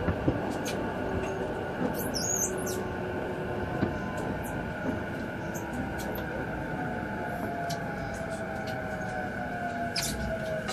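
Running noise heard inside a JR East E233-7000 series motor car: steady rumble of wheels on rail with scattered clicks. There is a brief high hiss about two seconds in, and the traction motors' whine falls slowly in pitch over the second half.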